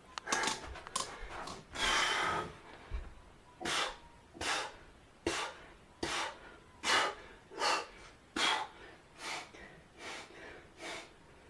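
A man breathing hard in short, even breaths, about one every three-quarters of a second, in time with push-ups. Over the first few seconds there are a few knocks and rustles as the camera is set down.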